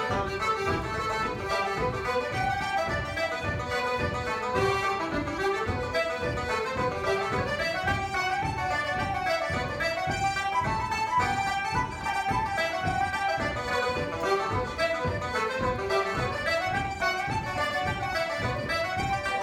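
Button accordion, flute and banjo playing a traditional tune together: a quick, busy melody over a steady, even pulse.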